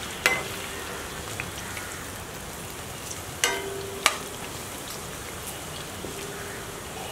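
Cauliflower pieces deep-frying in hot oil with a steady sizzle. A perforated metal skimmer stirring them knocks against the pan three times, near the start and twice about halfway through, and the pan rings briefly after each knock.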